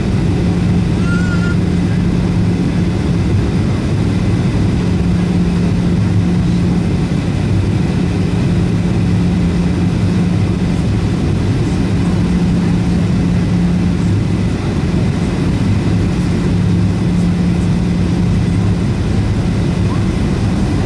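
Boeing 737-700's CFM56-7B turbofan engines heard inside the cabin on approach: a steady drone with a low hum, holding at an even pitch and level.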